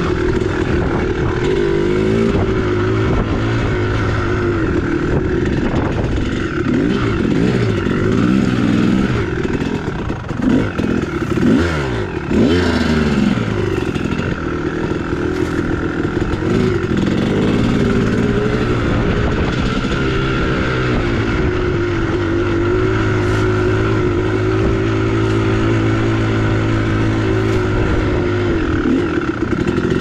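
2001 Kawasaki KX250 two-stroke dirt bike engine running under riding load, its pitch rising and falling as the throttle is worked. It swings quickly up and down about a third of the way in, then holds a steadier note for several seconds near the end.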